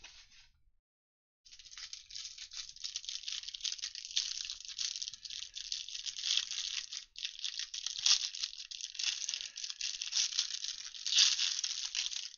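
Clear plastic cellophane wrap on a trading-card pack crinkling and tearing as it is pulled off a stack of football cards. The crackling starts about a second and a half in and goes on continuously, with a few louder rips.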